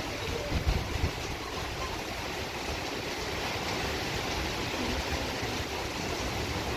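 Hurricane-force wind and rain rushing steadily, with gusts buffeting the microphone about half a second to a second in.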